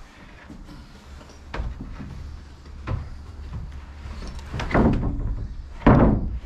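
Several knocks and thumps of wood on a timber roof frame, two heavier thuds near the end, as roof sheathing panels are pushed and set into place.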